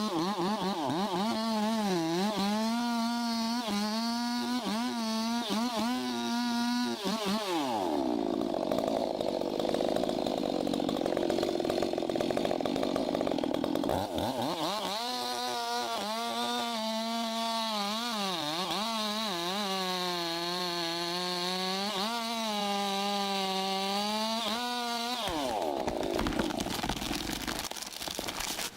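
Two-stroke chainsaw running at high revs, its pitch repeatedly dipping and recovering as it loads up in the cut. For several seconds in the middle the whine gives way to a rougher, lower noise, and about 25 seconds in the saw stops and a run of sharp cracking noises follows.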